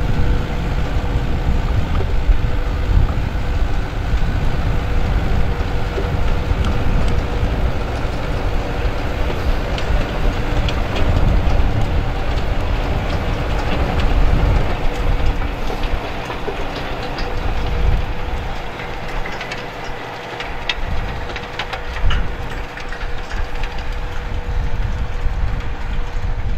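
New Holland TD100D tractor engine working under load while its PTO-driven rotary tiller churns dry soil: a heavy steady rumble with a constant whine running through it and scattered clicks and knocks. The tractor passes close and then draws away across the field, the rumble thinning near the end.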